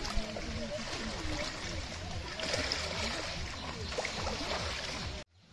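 Floodwater rushing and splashing in a steady wash of noise.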